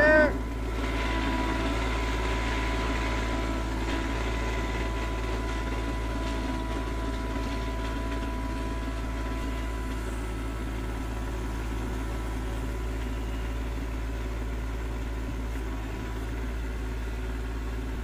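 RK25 compact tractor's diesel engine running steadily while the tractor works its front-loader pallet forks, with a thin, steady high whine over it for about the first half.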